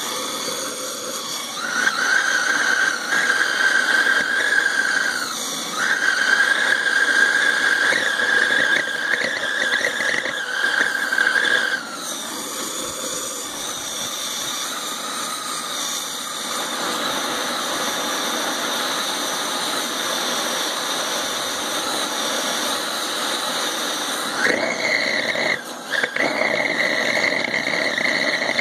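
A steady high-pitched whistle of air jetting through the nozzle of a homemade waste-oil micro forge burner as it is fired up, over a rushing hiss. The whistle cuts out several times, drops away for a long stretch in the middle, then comes back higher in pitch for the last few seconds as the forge catches.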